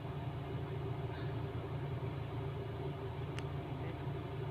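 Steady low mechanical hum, with one short sharp click about three and a half seconds in.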